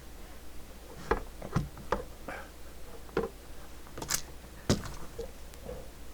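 Irregular metallic clicks and knocks, about nine of them with the loudest near the end, from a CB radio's sheet-metal top cover being handled and pressed onto its chassis on a workbench. The cover has a slight overhang and is not seating properly.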